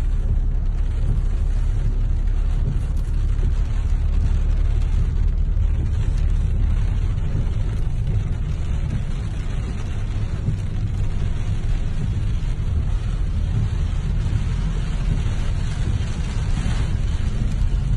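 Waterfall: a steady, deep rushing of falling water.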